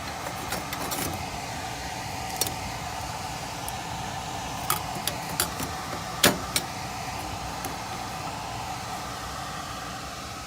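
A series of sharp metallic clicks and taps from parts and wiring being handled at a gas furnace, the loudest about six seconds in, over a steady mechanical hum.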